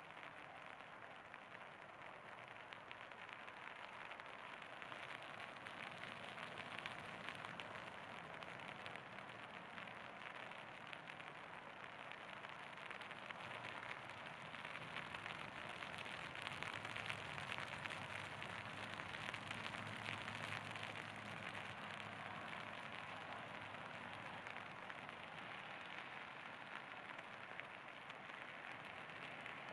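Steady rain falling, a dense patter of many small drops, a little louder midway through.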